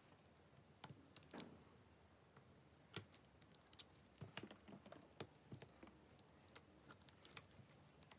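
Faint, scattered light clicks and taps of a plastic pry tool and metal tweezers against an opened smartphone's circuit board and frame as its connectors are pried loose. There are about a dozen irregular clicks, the clearest about three seconds in.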